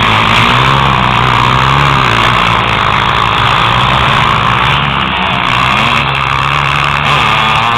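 Motocross motorcycle engines running on the snow track, a loud steady drone with small rises in pitch.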